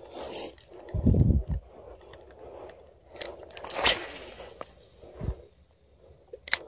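Spinning rod and reel handled through a cast and retrieve: a short whoosh just after the start, then rustles and a few sharp clicks.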